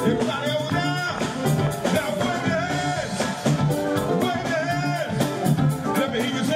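Live funk band playing with a driving drum beat and a saxophone horn section, a voice singing over it.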